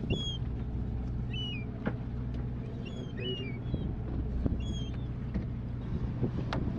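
Boat engine running as a steady low hum, with short, high chirping calls of birds coming in little clusters and a few sharp knocks.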